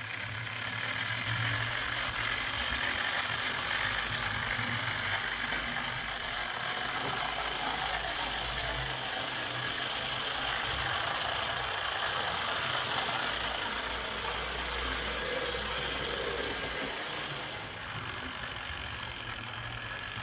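Lima Class 08 OO gauge model shunter running under DC power, its Ringfield motor and gear train giving off a steady grinding whir, a bit grindy sounding. The owner puts the noise down to the gears and plans a service and filing of the gears to quieten it.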